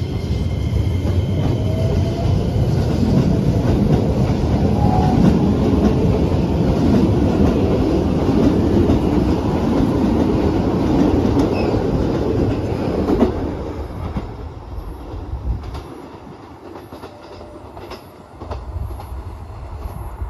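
Keikyu electric train pulling out of the station along the platform: motor whine rising in pitch at first, then heavy wheel rumble and clickety-clack over the rail joints. It fades about 13 seconds in as the last car leaves, with a few faint clicks and thumps after.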